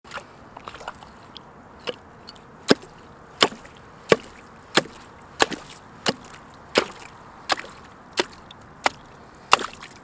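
A hand tool chopping through lake ice: about a dozen sharp, evenly paced strikes, roughly three every two seconds, the first few lighter.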